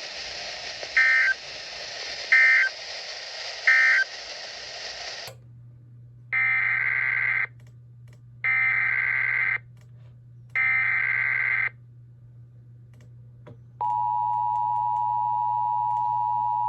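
Three short SAME end-of-message data bursts over weather-radio hiss. After a sudden cut, three longer, screechy SAME header data bursts play about a second apart over a low hum. About 14 seconds in, the steady two-tone EAS attention signal starts.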